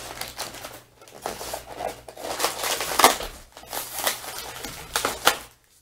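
Polystyrene foam packaging being lifted and handled: rubbing, creaking and crinkling, with a couple of sharper knocks about three and five seconds in.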